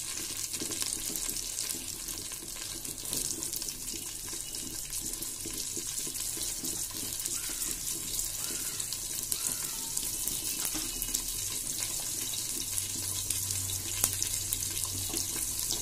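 Freshly added sliced onions sizzling in hot oil in a cooking pot: a steady hiss with scattered small pops.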